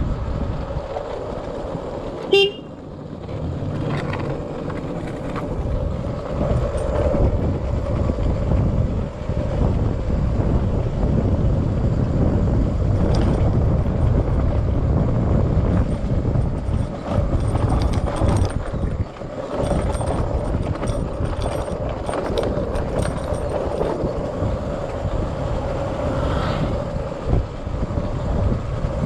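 Wind noise and tyre rumble from a KTM Duke 200 coasting downhill in neutral with its engine switched off, so no engine is heard. A short horn toot about two seconds in.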